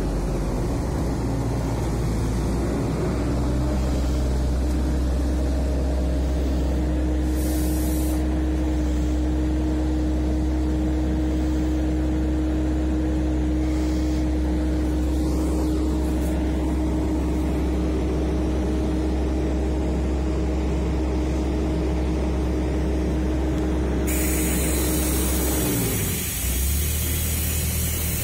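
Heavy diesel tipper truck engine running steadily at raised revs. About 24 seconds in, a loud hiss of air joins it. Near the end the revs fall away and the engine settles lower.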